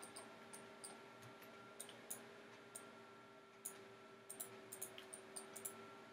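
Faint computer mouse clicks, scattered singly and then in a quick run of several between about four and six seconds in, over a low steady hum.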